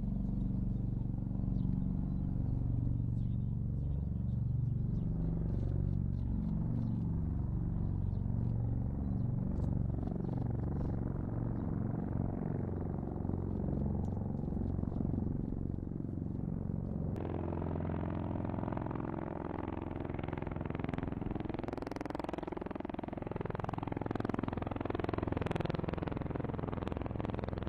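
MV-22 Osprey tiltrotor aircraft flying at close range: heavy low-pitched proprotor and engine noise with a slowly sweeping, shifting tone as the aircraft moves. The sound changes abruptly about two-thirds of the way through.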